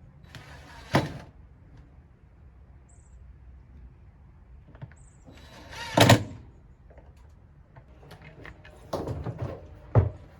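Washing machine drum being worked into its tub: metal scraping and clunking, with a hard clunk about a second in, a louder scrape and clunk about six seconds in, and a short rattle ending in a sharp knock near the end.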